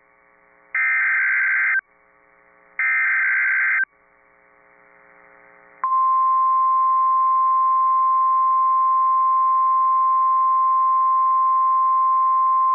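Emergency Alert System SAME header on NOAA Weather Radio: two roughly one-second bursts of screeching digital data about a second apart. About six seconds in, the steady single-pitch 1050 Hz warning alarm tone starts and holds, announcing a tornado warning.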